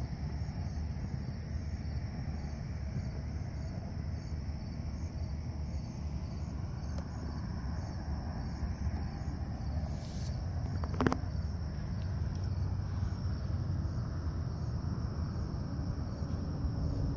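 Crickets trilling in high-pitched stretches over a steady low rumble, with one sharp click about 11 seconds in.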